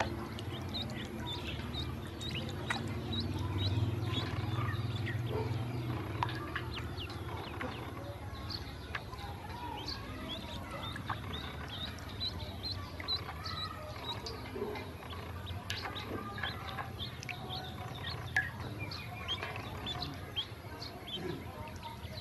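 Ducklings peeping, many short high chirps scattered throughout, over a steady low rumble.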